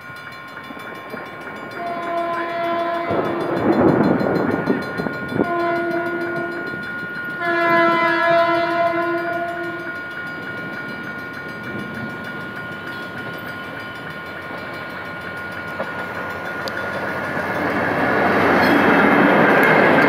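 General Motors GT-22CW-2 diesel-electric locomotive sounding its horn in several blasts as it approaches, the last and longest starting about a third of the way in. The locomotive's engine and wheels grow louder near the end as it passes close by. A level-crossing bell rings steadily underneath.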